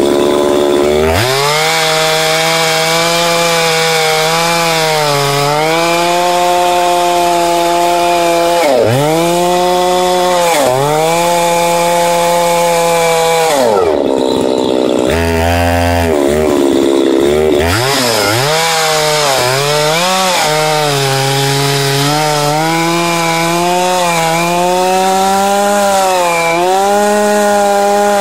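Chainsaw with a ripping chain running at full throttle while rip-cutting a log lengthwise in a homemade chainsaw mill. Its pitch sags several times as the bar takes load and recovers. About halfway through it drops to idle for a second or two, then revs back up.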